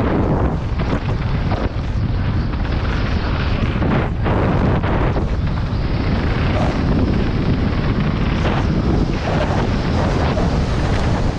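Downhill mountain bike ridden fast over a rocky, stony trail, heard from a camera on the bike or rider: steady wind noise on the microphone, with the tyres and bike rattling and knocking over stones many times a second.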